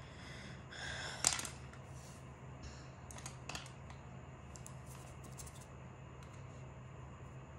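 A few light clicks and taps, the loudest about a second in and a sparse scatter after it, over a steady low hum.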